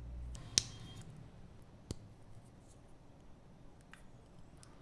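Small plastic parts of a Kinder Joy Natoons angelfish toy snapping together: one sharp click about half a second in, a second click about two seconds in, then a few faint ticks of the plastic being handled.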